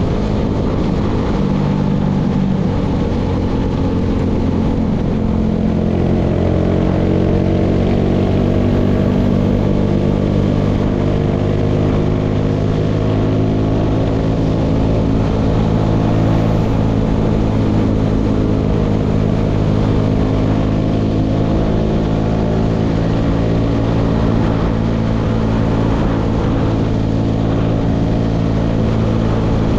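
Motorcycle engine running while under way. Its pitch shifts a little in the first few seconds, then holds steady.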